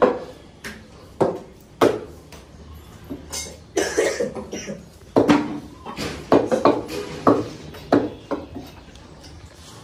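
A butcher's knife chopping mutton on a wooden stump chopping block: a series of irregular sharp chops, roughly one or two a second.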